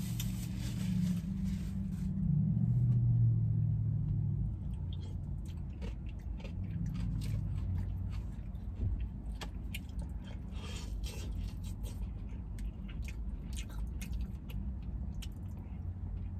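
Close-up eating sounds: biting and chewing a fried chicken sandwich, then many short crisp crackles and clicks as a piece of fried chicken is picked out of its cardboard box and bitten. A steady low hum runs underneath.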